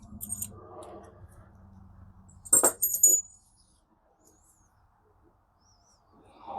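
Two sharp metallic clinks about half a second apart, with a brief high ring, from small metal parts being handled. They follow a couple of seconds of faint handling noise.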